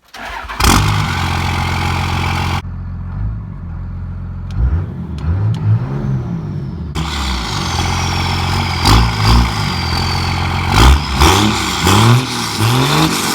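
Cummins 24-valve 5.9 L turbo diesel in a 1999 Dodge Ram, breathing through a 4-inch straight-pipe exhaust, starting up and then running, with several quick revs that rise and fall in pitch. A thin high whistle slowly falls in pitch in the middle.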